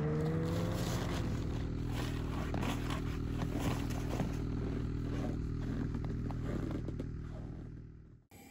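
A small engine running steadily, with crunching and scraping steps on snow over it. The hum fades out near the end.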